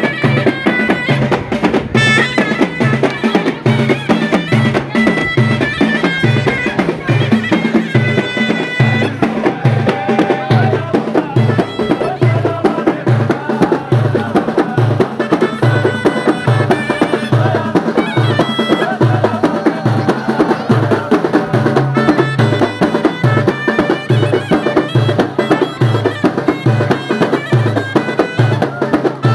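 Moroccan ghaita, a loud double-reed shawm, playing a traditional melody over a large double-headed drum beating a steady repeating rhythm.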